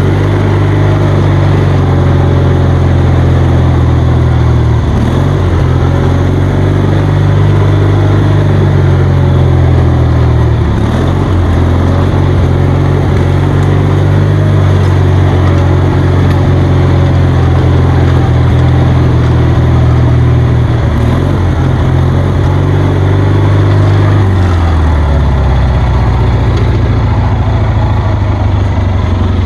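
Kohler 20 HP Magnum engine of a riding lawnmower running steadily and loud, with brief dips in speed. About 24 seconds in its pitch falls and it settles into a slower, lower run.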